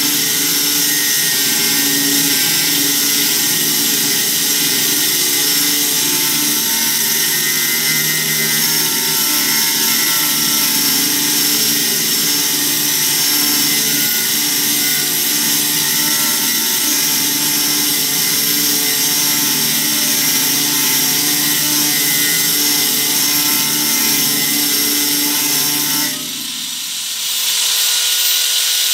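Electric angle grinder cutting through steel, a loud steady grinding whine. About 26 seconds in it eases off briefly, then bites into the metal again near the end.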